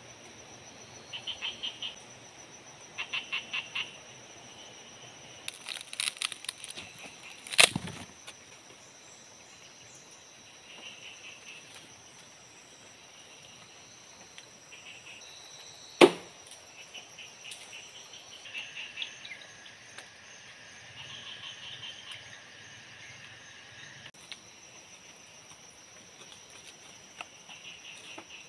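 Tropical forest ambience: a steady high insect drone with recurring bursts of rapid chirping calls, and two sharp cracks, about eight and sixteen seconds in.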